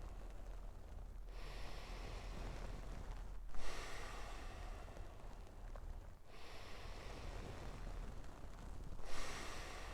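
A person breathing deeply and in an even rhythm: long, airy breaths run almost without a break, with a short pause about every two and a half seconds. This is a paced breathwork round, about four breaths long.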